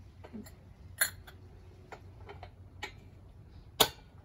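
A few sharp, separate metallic clicks and knocks as the air cannon's breech parts and aluminium sheet disc are handled and seated, the loudest near the end.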